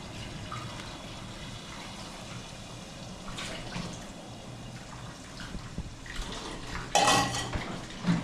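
Water running from a kitchen tap into a sink as dishes are washed, a steady rush with a louder burst of noise about seven seconds in.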